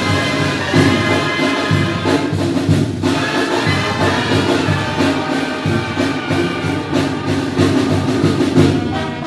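Mexican banda (brass band) playing a tune: a sousaphone carries the bass under trumpets and other horns, with drums keeping the beat.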